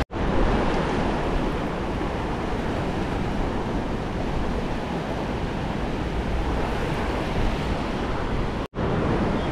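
Shallow beach surf washing in over the sand with wind buffeting the microphone, a steady rushing noise. It cuts out for an instant just after the start and again near the end.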